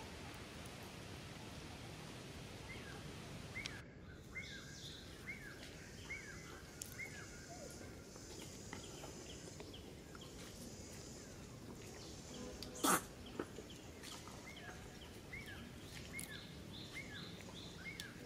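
Outdoor ambience of small birds chirping: many short, high, falling chirps, one every second or so, over a steady background hiss. One sharp click about thirteen seconds in.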